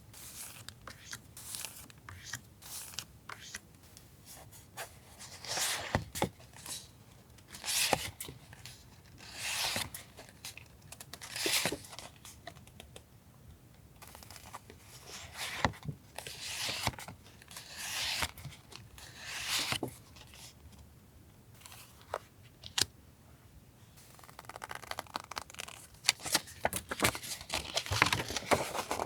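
Paper goods and their plastic sleeves being handled: a series of separate rustling, crinkling swishes with light clicks and taps between them, and denser clicking near the end.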